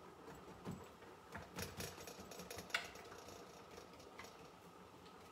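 A few light clicks and taps from a painted lamp base being handled on a tabletop, bunched between about one and three seconds in, the sharpest near the three-second mark.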